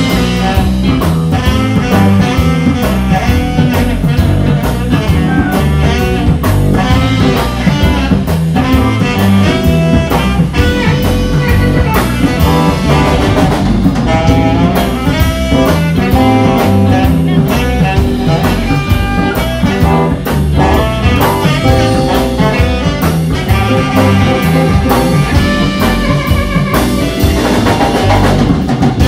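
Live band playing an instrumental passage: a saxophone solo over drum kit and band accompaniment.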